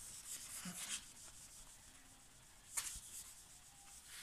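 A whiteboard eraser scrubbing across a whiteboard, wiping off a marker drawing in quick back-and-forth strokes. The strokes are fast and dense in the first second, then lighter, with one sharper stroke a little under three seconds in.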